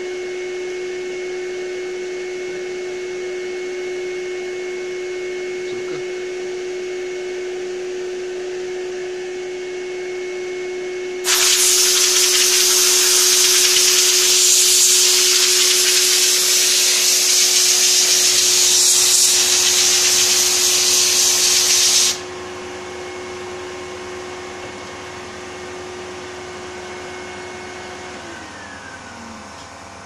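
Vacuum cleaner running steadily with a constant whine as it draws suction through the vacuum-forming box. About a third of the way in a loud hiss of compressed air from a blow gun aimed at the freshly formed plastic starts abruptly, drowns the vacuum for about ten seconds and cuts off. Near the end the vacuum cleaner is switched off and its pitch drops as it winds down.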